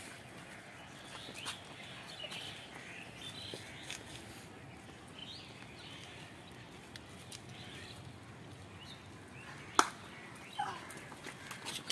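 Birds chirping over a steady open-air hiss. About ten seconds in comes one sharp hand clap, the loudest sound, the signal to change exercise.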